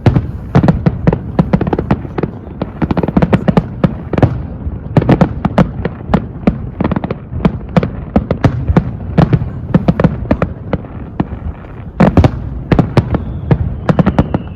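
Fireworks display: a dense, unbroken barrage of bangs, several a second, with a louder cluster about twelve seconds in.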